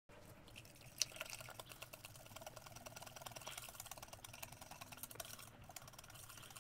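Wire whisk beating waffle batter in a mixing bowl: a quick, steady run of small clicks and taps as the wires strike the bowl, with one sharper knock about a second in.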